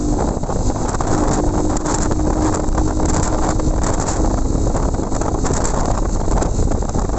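Wind buffeting the microphone of a motorcycle riding at highway speed, with its engine running underneath the rush of air. A faint steady hum sits under the noise for the first few seconds, then fades.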